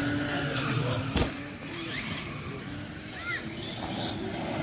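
Radio-controlled car driving with a faint steady motor whine, and a single sharp knock about a second in.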